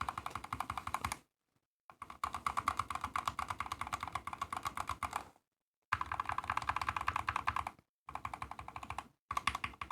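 Fast typing on a mechanical keyboard fitted with lubed Frankenswitches (Holy Panda housings with Kiwi stems), in four runs split by brief pauses. Each keystroke is a sharp clack.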